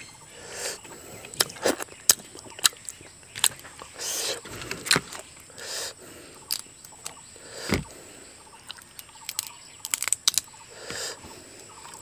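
Eating boiled crab with rice by hand: irregular sharp cracks and crunches of crab shell being bitten, with chewing and wet mouth clicks.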